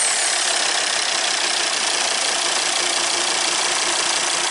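Volvo D5244T4 2.4-litre five-cylinder turbodiesel idling steadily.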